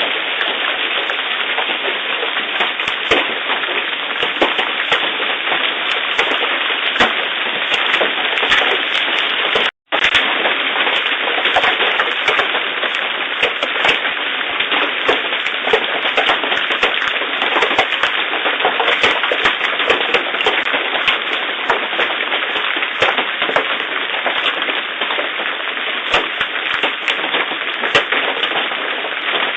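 Large hailstones, some over three inches, pelting down in a heavy storm. Dense, irregular cracks of hard impacts ride on a continuous hiss of rain and hail. The sound breaks off for a split second about ten seconds in.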